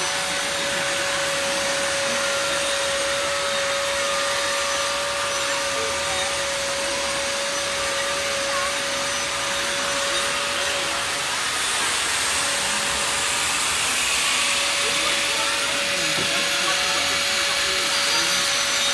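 Electric hand-held rotary carving tool running steadily with a constant whine as it carves a block of ice. From about twelve seconds in, a louder hiss joins as the bit grinds into the ice.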